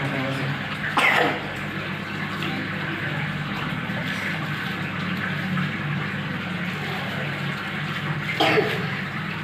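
A young child coughs, once about a second in and again near the end, over a steady hiss and low hum.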